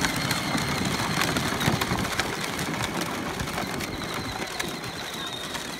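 Peg-Perego Polaris electric ride-on quad driving over dirt: a thin steady whine from its electric drive, with the wheels crackling on the gravelly ground. It gets slowly quieter as the quad moves away.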